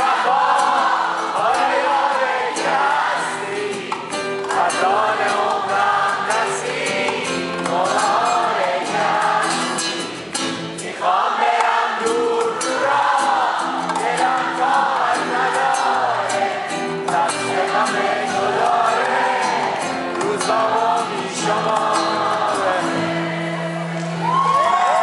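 Live acoustic performance of a Persian song: singing over two acoustic guitars and a double bass, the bass notes plucked steadily beneath the melody.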